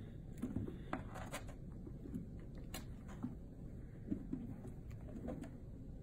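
Kittens play-fighting in a small plastic toy wrestling ring: scattered soft knocks, clicks and rustles of paws and bodies against the plastic ring and the carpet.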